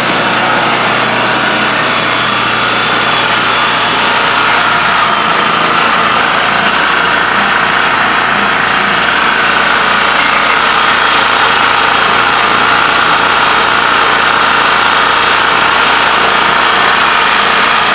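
Small gasoline engine of an old portable generator running steadily, now fed by a newly fitted gas tank.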